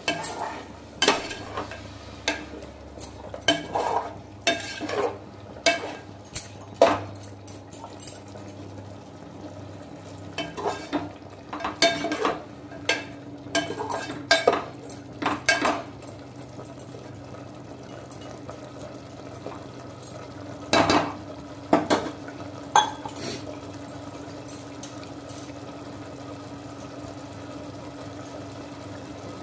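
A perforated steel skimmer spoon stirring chicken curry in a metal pot, clinking and scraping against the pot in irregular strokes through the first half, with a few more strokes about 21 to 23 seconds in. A steady low hum runs underneath.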